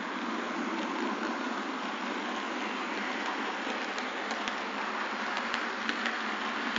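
Model trains running on the layout's track: a steady rolling hiss of metal wheels on rails, with light scattered clicks in the second half.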